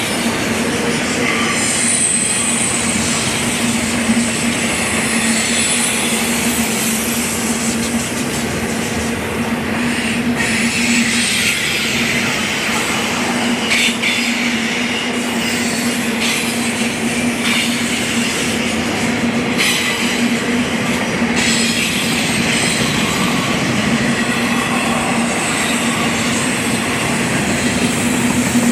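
BNSF freight train cars rolling past close by: a steady, loud rush of steel wheels on the rail, with a steady low tone running underneath and high wheel squeal coming and going.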